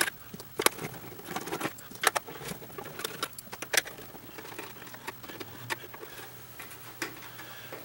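Irregular light clicks and knocks from hands handling a plastic KitchenAid toaster body, its power cord and a screwdriver on a tabletop.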